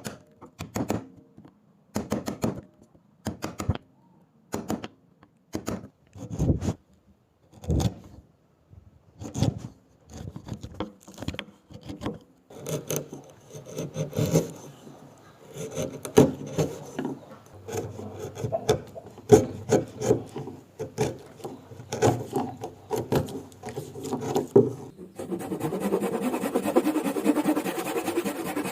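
A hand tool scraping wood in repeated strokes, spaced out at first, then quicker and denser, and running together into continuous scraping near the end.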